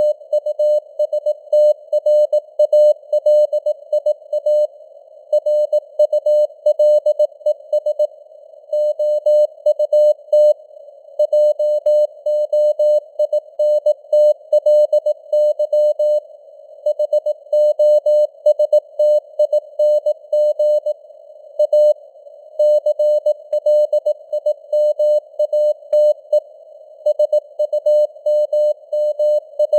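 Morse code (CW) at 18 words per minute: a single steady-pitched tone keyed on and off in dots and dashes, with short gaps between words. It sits in a narrow band of simulated radio-receiver hiss.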